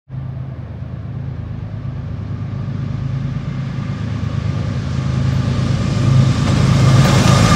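Diesel engines of approaching Norfolk Southern freight locomotives, a steady low drone that grows louder as the train nears.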